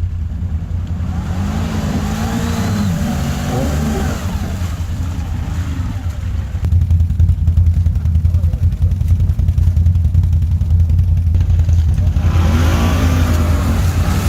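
Quad bike (ATV) engine running under way, its note rising and falling with the throttle. It gets louder about halfway through.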